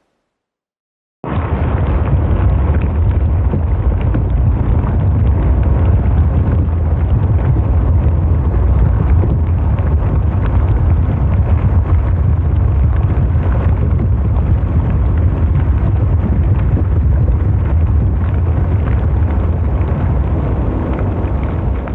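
Loud, steady rumbling noise of heavy surf and wind on the microphone, cutting in abruptly about a second in after a brief silence.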